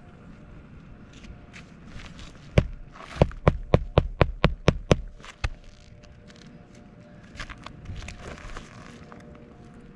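Hammer driving roofing nails through an asphalt shingle: one sharp strike, then a quick run of about eight strikes at roughly four a second, and one last blow.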